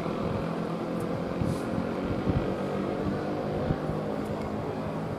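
Jet engines of an AirAsia Indonesia Airbus A320 climbing away after takeoff: a steady distant drone with a low hum in it, slowly fading.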